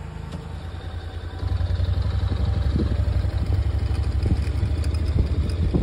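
A vehicle engine idling with a low, evenly pulsing rumble that gets louder about a second and a half in.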